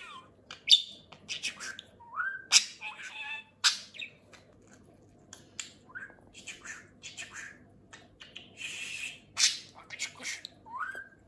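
Budgerigar chattering: quick clicks, chirps and short squawks mixed with a few short rising whistles, with a brief lull about four seconds in.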